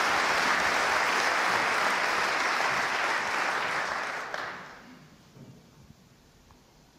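Snooker audience applauding a pot, the clapping fading away about four and a half seconds in.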